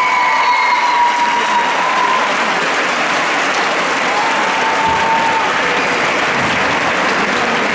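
Large crowd applauding steadily in a packed sports hall, with the last held notes of the routine's music fading out over the first two seconds.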